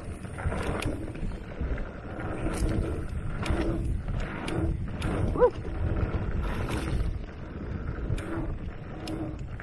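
Mountain bike rolling fast over a dirt trail: rumble of the tyres and wind buffeting the microphone, with scattered clicks and rattles from the bike. A short rising squeak comes about halfway through.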